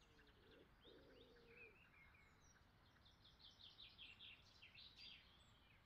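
Near silence with faint birdsong: small birds chirping high and brief, in a quick run of chirps in the second half.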